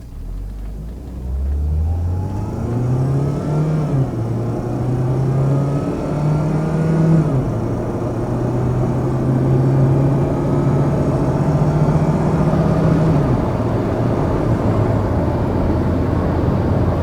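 2001 Volvo S40's 1.9-litre turbocharged four-cylinder accelerating hard at about three-quarter throttle. The engine note climbs, then drops back as the five-speed automatic upshifts, three times in all, the last about two-thirds of the way through. It then runs steadily at speed.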